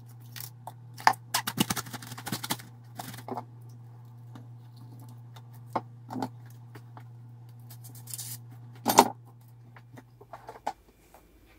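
Plastic cling film crinkling and crackling in short bursts as it is pulled off the roll and spread over balls of dough, with a loud crack about nine seconds in. A steady low hum runs underneath and stops shortly before the end.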